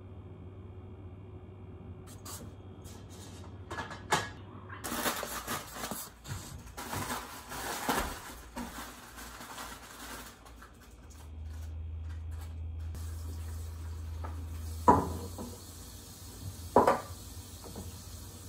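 Household handling noises: scattered knocks and clatter, then a steady low hum from about halfway, and two sharp knocks near the end.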